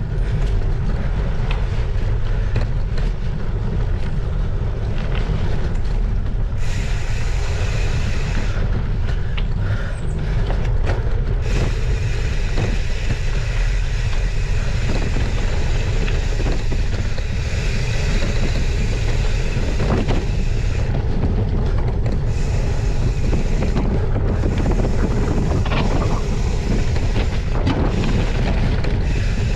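Gravel bike descending a loose dirt-and-gravel trail: Maxxis 40 mm tyres rumbling over the surface, with wind buffeting the handlebar-mounted microphone and scattered knocks and rattles from the bike over bumps. A higher steady hiss joins in for a stretch in the middle.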